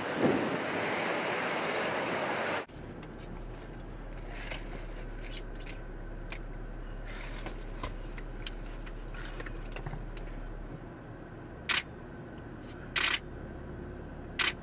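Camera shutters clicking repeatedly over a quieter steady street background with a low hum, with three louder, longer shutter clicks near the end. It opens with a loud rushing street noise that cuts off abruptly a couple of seconds in.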